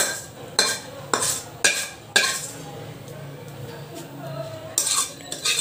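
Metal scraping and knocking on a kadhai as roasted coconut and sugar are tipped and scraped out of it into a steel pot: about five sharp knocks half a second apart, a quieter stretch of scraping, then a few more knocks near the end.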